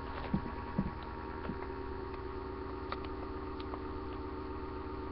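Steady electrical hum picked up by a laptop's built-in microphone, with several faint steady pitches, broken by a few soft taps and clicks.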